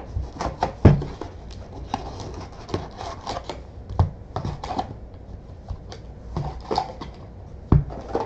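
A cardboard box of trading-card packs being opened by hand and the wrapped packs pulled out and set down on a desk: rustling, crinkling and light taps, with a louder thump about a second in and another near the end.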